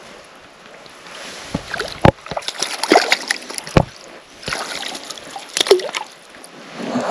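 Water splashing and sloshing in the shallows as a hooked trout is handled in the weed, in several irregular bursts with a few sharp knocks.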